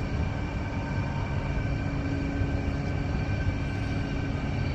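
Steady mechanical drone: a low rumble with a constant whine above it, from motors or engines running without change.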